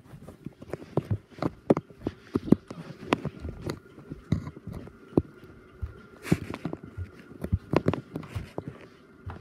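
Footsteps and knocks from someone moving around a house, uneven thumps and clicks a couple of times a second, with a faint steady hum underneath.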